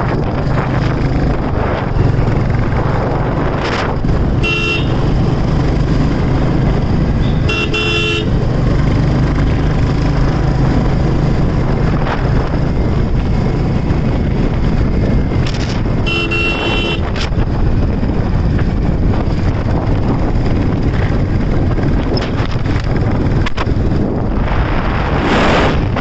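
Royal Enfield Classic 350 single-cylinder engine running steadily while riding, with road and wind noise. A vehicle horn honks briefly three times, a few seconds apart.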